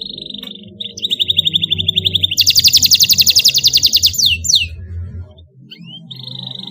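Domestic canary singing in rapid rolling trills. The trill is loudest and fullest from about two and a half seconds in, ends in a few quick falling notes, and after a short pause a new trill starts near the end.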